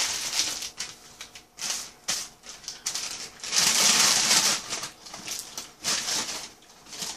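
Paper fast-food bag and wrappers crinkling and rustling as they are crumpled by hand, in irregular bursts, loudest about halfway through.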